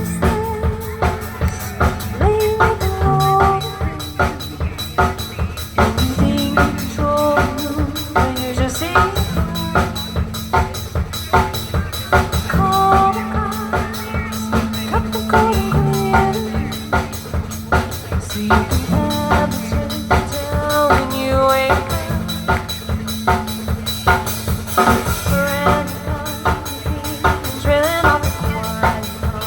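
Live band playing, with a drum kit keeping a steady beat under bass and held melodic notes.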